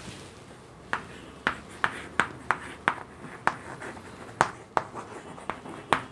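Chalk writing on a chalkboard: about a dozen sharp, irregularly spaced taps and short scrapes as the letters are written, starting about a second in.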